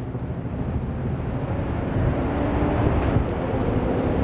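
Steady low rumble of city street traffic with wind on the microphone, swelling gradually louder.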